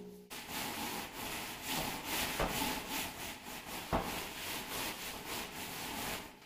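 Repeated rasping strokes of a hand tool scraping and rubbing along wet sand-cement mortar at the tiled wall edge, with one sharp knock about four seconds in.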